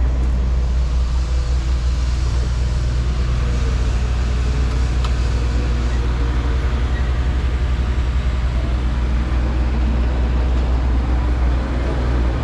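Steady low engine drone of a running motor vehicle, holding an even pitch throughout.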